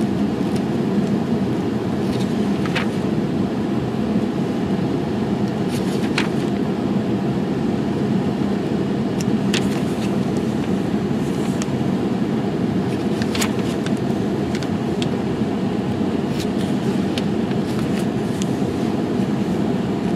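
Steady low rumbling background noise with a scattering of faint sharp clicks over it.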